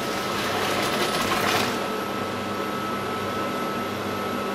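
Pot of boiled pasta drained into a kitchen sink: hot water pouring and splashing for about the first two seconds, then tailing off to a trickle, over a steady faint hum.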